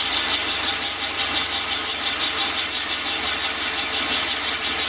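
Van Norman 944S boring bar running under its automatic feed, its cutter boring a Willys F-head engine's cast-iron cylinder: a steady machine run with a high whine over a rough cutting noise.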